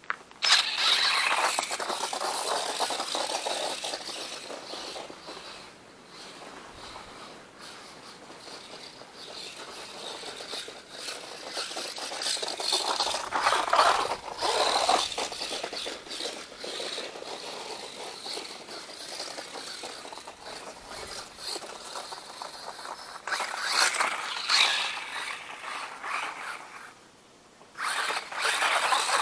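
Four-wheel-drive RC truck's motor and drivetrain whining as it drives. The pitch rises and falls as it speeds up and slows, with scraping and rattling. It is loudest in spurts at the start, about midway, and twice near the end.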